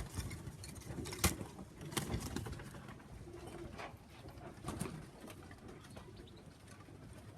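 Domestic pigeons cooing, with a few sharp clicks or knocks, the loudest about a second in.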